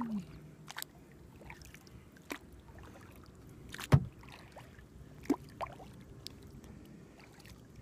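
Kayak being paddled on calm water: soft paddle strokes and water sounds, with a few light clicks and knocks from the paddle and hull, the sharpest about four seconds in.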